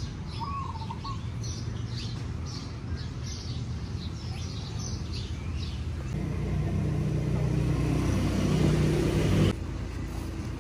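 Small birds chirping in quick short calls over a steady low traffic rumble. From about six seconds in, a passing vehicle's engine grows louder, then cuts off suddenly near the end.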